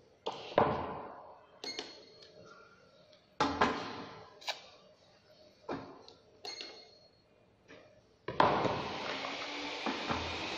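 A string of about nine uneven knocks and clacks as items are placed in and against a bait boat's metal bait hopper during a load test, followed near the end by a steady noise that sets in suddenly.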